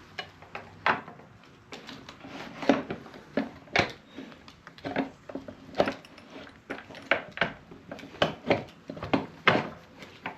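Irregular metallic clinks and knocks, several a second, from the rear brake caliper and wheel parts of a motorcycle being handled and seated against each other while the caliper is lined up on the wheel.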